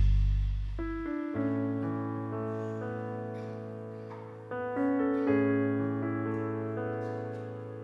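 Keyboard playing slow piano chords as the introduction to the next worship song. Each chord is struck and left to fade: new chords come in at about a second in, past the middle, and again just after. The low held chord of the song before dies away in the first second.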